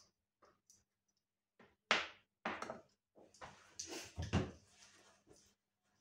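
Knocks and clatter of kitchen things being handled and set down: a peeled apple put on a plastic cutting board and a plastic-handled vegetable peeler laid down on a glass cooktop. The sharpest knock comes about two seconds in, then several smaller clatters, with a duller thump a little past four seconds.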